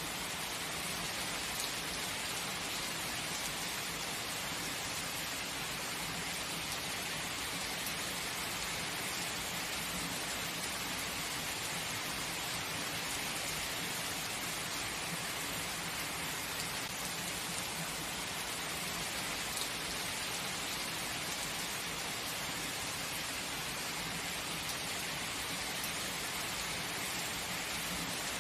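Steady heavy rain falling, an even hiss of drops on surfaces with no thunder.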